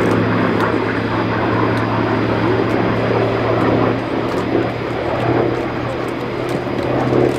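Hawker Sea Fury's Bristol Centaurus radial piston engine and a MiG-15 jet flying over together in formation: a steady, even aircraft engine drone with a strong low hum.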